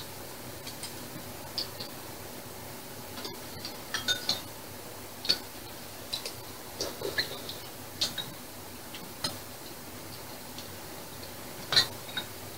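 Irregular clinks and taps of metal spoons and chopsticks against ceramic bowls and a metal stew pot while eating, the loudest clink near the end.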